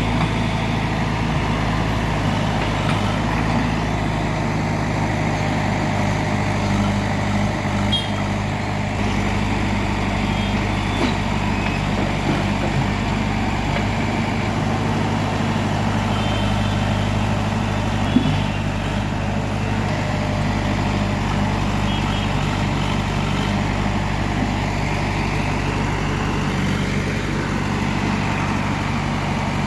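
Heavy diesel engine running steadily at an even speed, with a few brief knocks, the clearest about eighteen seconds in.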